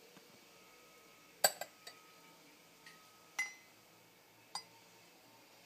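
Metal spoon clinking against the inside of a ceramic mug while stirring a drink: about six light, ringing clinks, the loudest about a second and a half in.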